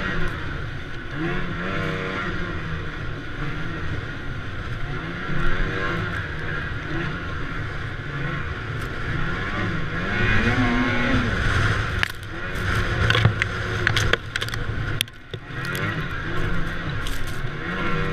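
Snowmobile engine heard from the rider's seat, revving up and down as it ploughs through deep powder snow. In the last several seconds there are scattered knocks and clatters, and the sound drops away sharply for a moment about three seconds before the end.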